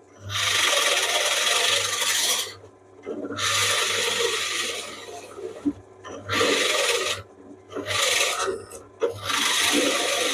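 Hole saw in a pillar drill cutting into plywood, a rasping grind in five pushes of one to two seconds each with short pauses between, as the saw is fed down and eased back. The drill's motor hums steadily underneath.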